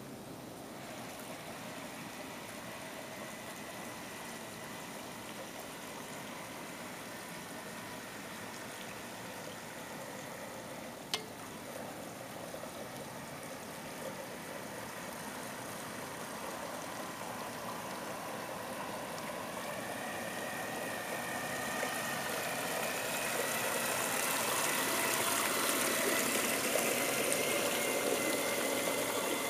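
Model paddlewheel towboat driven by a 7.2-volt cordless drill motor: a steady motor whine and the stern wheel churning the water. Both grow louder in the second half as the boat comes close. A single sharp click about eleven seconds in.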